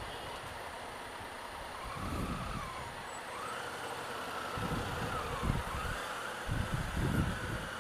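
Honda Africa Twin CRF1000L motorcycle riding slowly through heavy traffic beside a city bus. Low gusts of wind rumble on the microphone every second or so. From about two seconds in, a faint whine wavers up and down in pitch.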